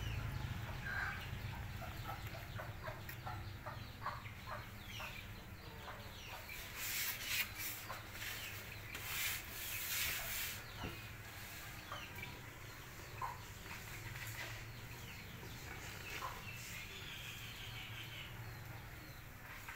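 Short animal calls scattered through, over a steady low hum, with a stretch of hissing rustle in the middle.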